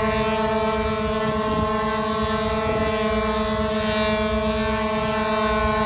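Ship's horn sounding one long, steady blast that cuts off sharply near the end.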